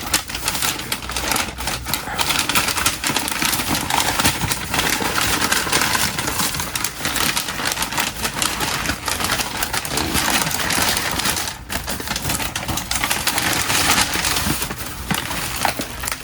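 Packaging crinkling and rustling in a dense run of small crackles while a shipped potted plant is unwrapped by hand.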